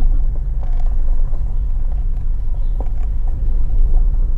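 Four-wheel-drive vehicle driving, heard from inside the cabin: a steady low rumble with a few light knocks and rattles.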